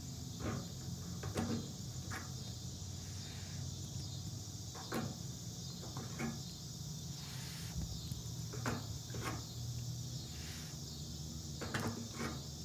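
A steady high-pitched chorus of insects, broken by a scattering of short clicks and taps from a plastic bubble wand and bottle being handled.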